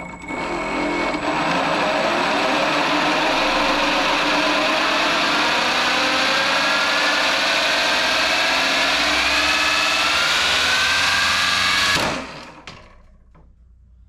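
3D-printed 170 mm electric ducted fan, driven by a 7070 motor through a planetary gearbox, spins up to a loud rush of air with a gear whine that climbs slowly in pitch. About twelve seconds in it cuts off suddenly with a short crack and winds down: the planetary gears have failed.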